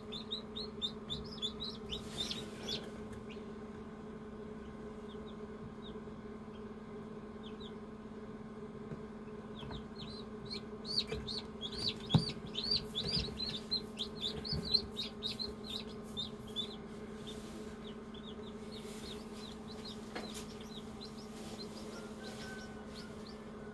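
Newly hatched chicks peeping in an incubator, with quick runs of short falling peeps near the start and again through the middle. A steady low hum from the incubator runs under them, and a single soft knock comes a little after halfway.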